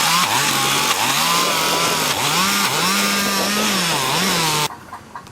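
Two-stroke chainsaw running and revving, its engine note rising and falling several times as it cuts. It stops abruptly near the end.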